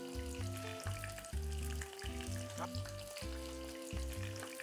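Hot oil sizzling and crackling around spring rolls as they are laid into a frying pan to shallow-fry, with background music underneath.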